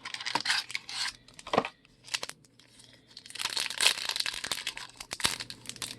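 Trading card pack wrapper being torn open and crinkled by hand, in irregular crackly bursts with a few sharp snaps, busiest in the second half.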